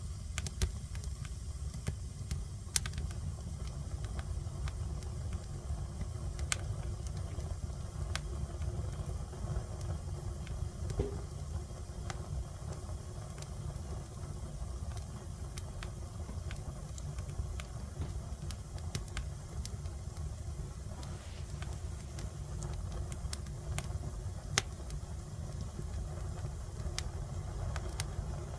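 Fire burning in a fireplace: irregular sharp crackles and pops over a steady low rumble.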